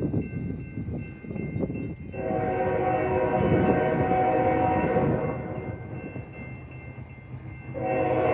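Norfolk Southern freight locomotive's air horn sounding a long chord blast of about three seconds, then starting a second blast near the end. Low wind buffeting on the microphone runs underneath.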